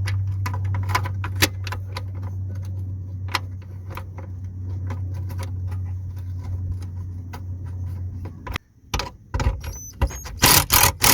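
Metal clicking and rattling as a new handbrake cable and its fittings are handled and pushed into place, over a steady low hum that cuts off about eight and a half seconds in. Near the end the clicking turns into a louder, rapid metallic rattle.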